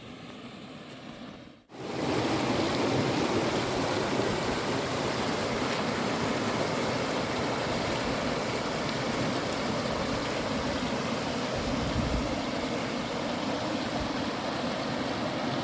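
Mountain river rushing: a steady, full water noise that starts abruptly about two seconds in, after a short, quieter stretch.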